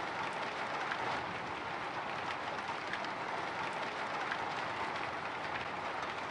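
Light drizzle pattering on a window: a steady hiss of rain with many small, scattered drop ticks.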